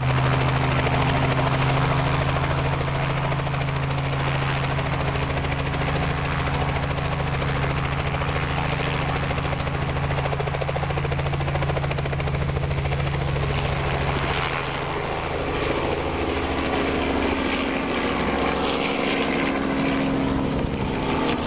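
Robinson R44 Raven II helicopter running on the ground with its rotor turning, giving a steady hum. About two-thirds of the way through, the sound changes as it lifts off and climbs away overhead.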